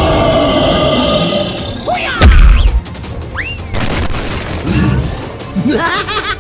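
Layered cartoon sound effects over music: a drawn-out monster screech for about two seconds, then a heavy boom, then a short whistling glide, with quick squiggly rising sounds near the end.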